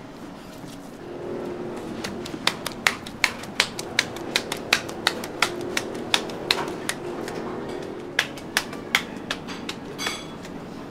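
Ground-meat hamburger patty being slapped back and forth between gloved palms to shape it and drive out air, with about three sharp slaps a second starting about two seconds in.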